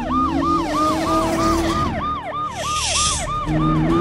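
Police car siren in fast yelp mode, its pitch rising and falling about three times a second, with a brief hiss near the end.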